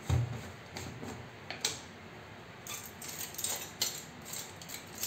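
A bottle set down on a countertop with a dull thump, then a string of light clicks and knocks as a plastic salt jar is opened and handled.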